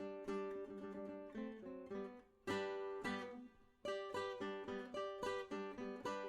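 Background music: a plucked acoustic guitar picking single notes and chords, with short gaps between phrases.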